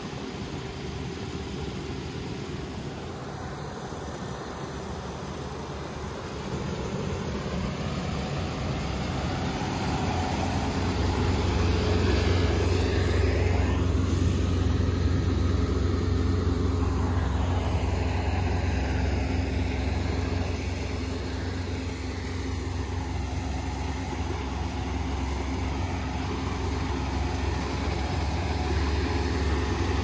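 Kubota ER470 combine harvester running as it harvests rice: a steady engine hum that grows louder from about seven seconds in and stays strong to the end.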